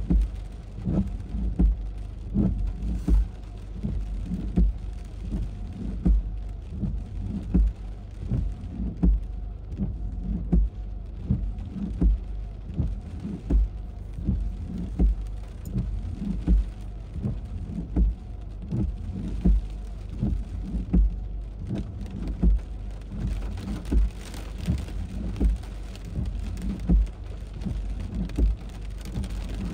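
Heavy squall rain hissing steadily, with irregular low thumps of wind one or two a second; the rain grows heavier about three quarters of the way through.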